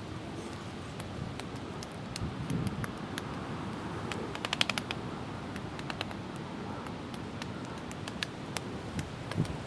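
Steady wind noise and rustling, with scattered light clicks and a quick rattle of clicks about four and a half seconds in.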